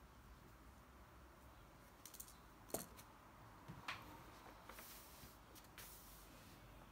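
A handful of light clicks and taps from pens being handled on a desk: a plastic ballpoint set down on a paper notebook and another pen picked up. The sharpest tap comes just under three seconds in and another about a second later, over faint room hiss.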